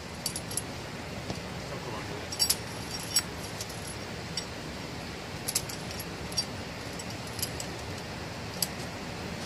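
Steel lifting chain clinking and jangling as it is handled around a hanging stone, in scattered clinks over a steady low rumble.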